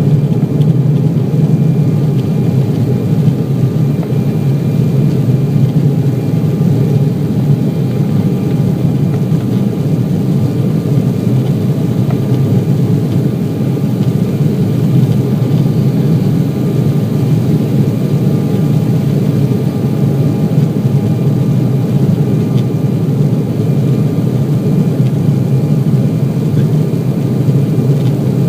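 Embraer 190 airliner's twin GE CF34-10E turbofans running steadily at climb power: a loud, even low rumble with faint steady whining tones above it.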